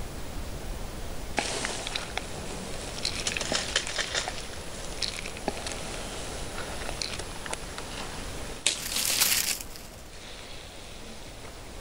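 Dry crunching and crackling: a dense run of small crackles and clicks starts about a second and a half in and lasts some seven seconds. Then comes a loud burst of hiss lasting about a second, all over a low rumble.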